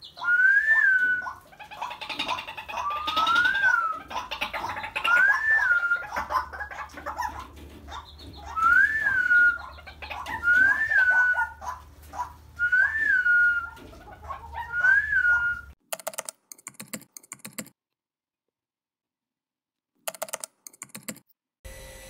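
White-breasted waterhen calling: a series of about eight rise-and-fall whistled notes, one every second or two, mixed with rapid clicking and grunting notes. The calling cuts off abruptly about sixteen seconds in, leaving only a few scattered clicks.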